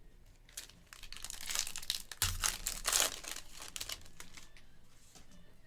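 Foil trading-card pack wrapper crinkling as it is torn open and handled, in a run of crackly rustles from about half a second in, loudest around two to three seconds in, then fading to a few small clicks.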